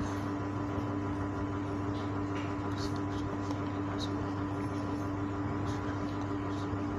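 Steady room noise in a small room: a low hum and an even hiss with two faint steady tones. A few faint, brief high squeaks come a couple of seconds in.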